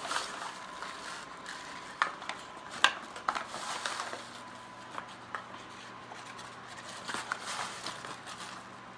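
Paper flour bag crinkling and rustling as a plastic measuring cup scoops coarse wholemeal flour out of it, with several short crackles and light knocks of the cup against the bag.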